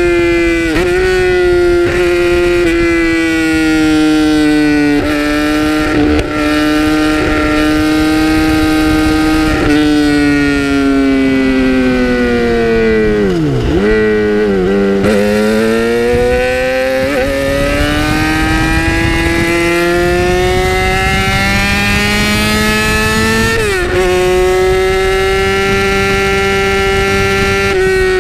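2008 Yamaha R6's 600 cc inline-four with an Akrapovic exhaust, heard from the rider's seat on the move. It runs at high revs with short dips at gear changes. About halfway through the revs fall steeply with quick blipped downshifts, then climb steadily as the bike accelerates again.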